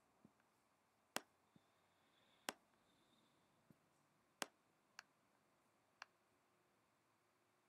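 Computer mouse clicking: about eight short, sharp clicks at irregular intervals, five of them louder than the rest, faint over near-silent room tone.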